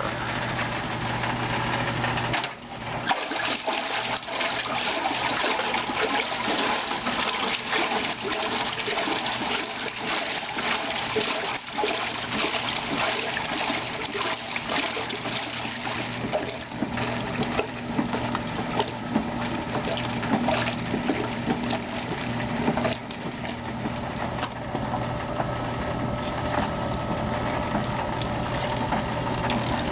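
Viking wringer washer running: a steady electric-motor hum with the agitator sloshing and churning the wash water in the tub. Near the end the motor-driven wringer rollers squeeze clothes through.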